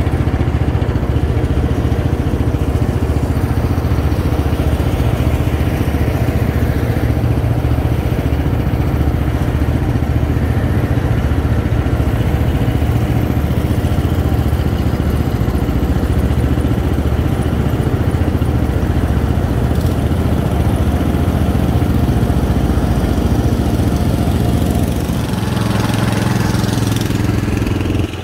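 Wheel Horse garden tractor engine running steadily up close, its note changing near the end as the tractors move along the road.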